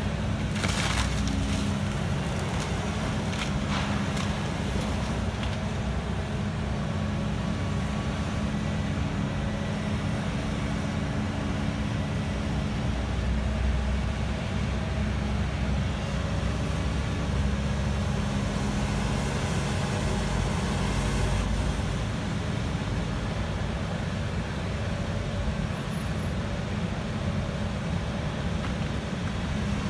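Diesel engine of a Volvo demolition excavator running steadily, with a few light knocks in the first few seconds.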